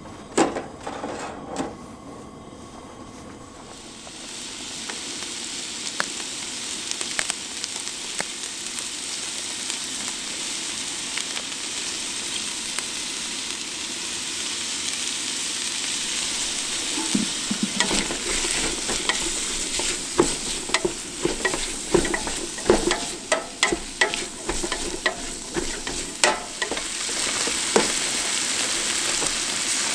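Chopped onions and vegetables frying in a stainless steel stockpot on a propane camp stove: a few knocks as the pot is set down, then a sizzle that builds up from about four seconds in and keeps growing. In the second half a spatula stirs the pot, with many short scrapes and clicks against the metal.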